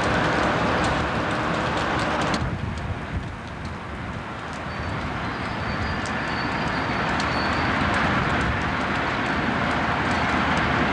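Conrail diesel locomotives running as the train starts to pull away. The engine sound dips about two seconds in, then builds steadily as the units load up.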